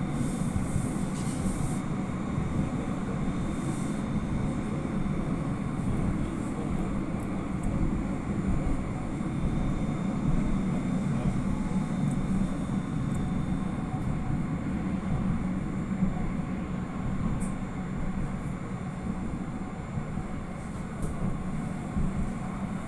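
Interior cabin noise of an Astra tram in motion: a steady low rumble with a faint steady high tone above it.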